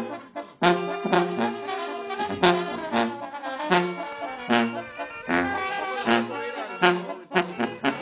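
Brass band music: trombones and trumpets over a steady drum beat and an alternating bass line. There is a brief break right at the start, then the band comes back in with a strong accent about half a second in.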